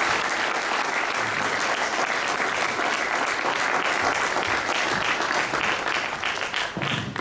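Audience applauding, a dense patter of many hands clapping that thins out to a few scattered claps near the end.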